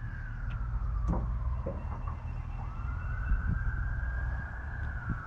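A siren wailing, its pitch rising slowly, falling about halfway through and rising again, over a steady low rumble, with a few faint knocks.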